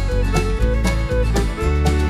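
Background music with a steady beat, about two strokes a second, over a strong bass line, in a country or bluegrass style with guitar and fiddle.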